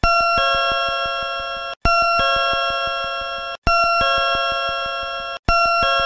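Nippon Signal platform screen door chime from the Hokkaido Shinkansen, the door-opening signal: a two-note falling 'pin-pon' electronic chime. It repeats about every 1.8 seconds, each ring fading and then cut off, three times in full with a fourth starting near the end.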